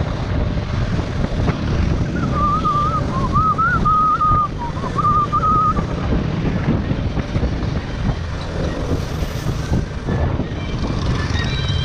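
Wind rushing over the microphone, with the running of a KTM 200 Duke's single-cylinder engine underneath, while riding. From about two seconds in, a wavering whistled tune is heard for a few seconds.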